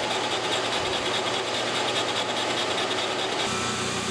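Big Monarch engine lathe turning with its chuck in reverse while a boring bar takes a 25-thousandths cut in a clutch-arm bore: a steady running and cutting sound with no chatter, the sign of a clean cut. Near the end the sound changes abruptly to a steady hum.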